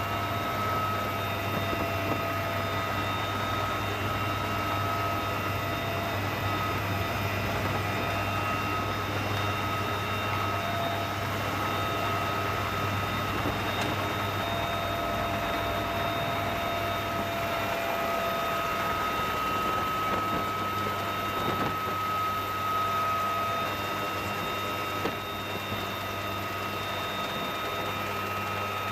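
Cabin noise of a UH-1Y Venom helicopter: the steady whine of its turboshaft engines and gearbox, several high tones held over a constant low hum.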